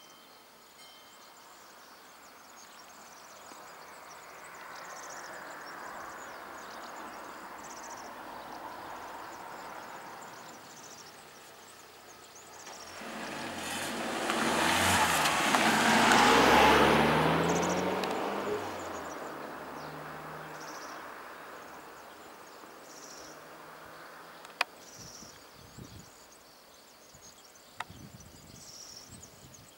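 A small van drives past close by. Its engine and tyre noise swells over several seconds to a peak and then fades away. Faint high insect chirps repeat every second or two throughout, and two sharp clicks come near the end.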